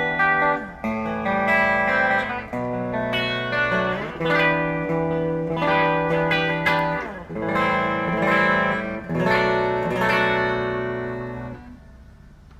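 PRS SE Custom 24 electric guitar with a roasted maple neck and fingerboard, playing a run of ringing chords that change every second or two. The last chord is left to ring and fades out near the end.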